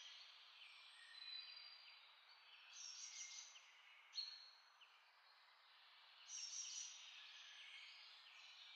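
Faint bird chirps over a steady hiss, in a few brief clusters, with one short click about four seconds in.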